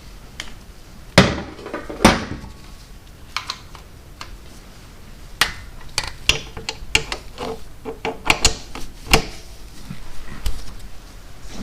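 Metal hand tools clinking and clicking as bolts are worked with a socket and torque wrench set to 100 inch-pounds. Two sharp knocks come about one and two seconds in, then a run of quicker metallic clicks through the middle.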